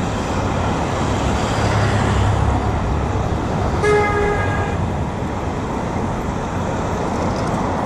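Steady road traffic passing, with wind on the microphone; about four seconds in, a car horn gives one short honk.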